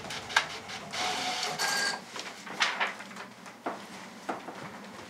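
Inkjet all-in-one printer printing: a sharp click, about a second of whirring paper feed with a faint whine, then several separate sharp clicks.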